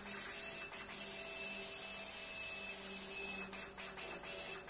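Hand socket ratchet clicking rapidly as a bolt on a diesel engine's front housing is run in, breaking into separate clicks near the end.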